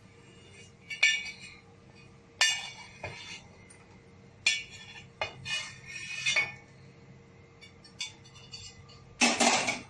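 Flat metal spatula scraping roasted almond pieces off a metal tawa into ceramic mugs: a series of about eight separate scrapes and clinks of metal on the griddle and against the mug rims, the loudest near the end.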